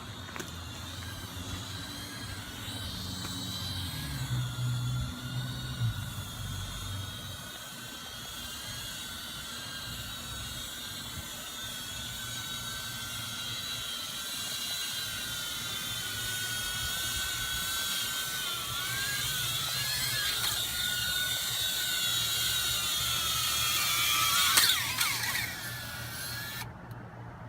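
Blade Inductrix 200 FPV micro quadcopter's electric motors and propellers whining in flight, several high tones wavering in pitch with throttle. The whine swells and its pitch sweeps quickly up and down as the quad comes close, loudest about 24 seconds in, then falls away near the end.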